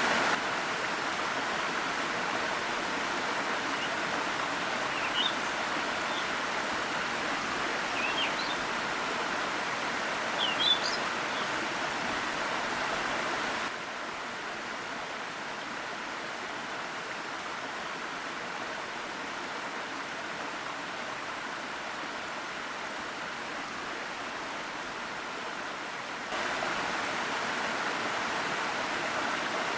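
Steady rush of a forest waterfall, with a few short high bird chirps in the first third. The rush drops to a quieter level about halfway through and comes back louder near the end.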